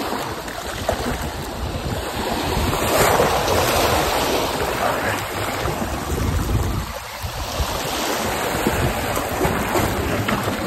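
Small waves washing and lapping against the boulders of a rock jetty, with wind buffeting the microphone. The wash swells louder about three seconds in.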